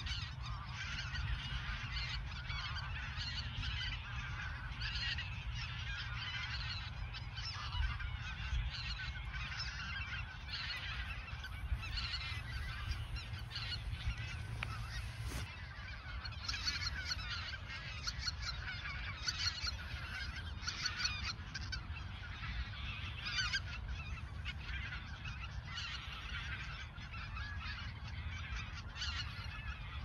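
A large flock of greater white-fronted geese calling continuously, many short high yelping honks overlapping into a dense chorus, over a steady low rumble.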